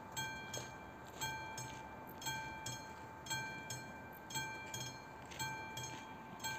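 Railway level-crossing warning bell ringing in a steady rhythm, a ring about once a second, each followed by a fainter one. It signals that the crossing is closed for an approaching train.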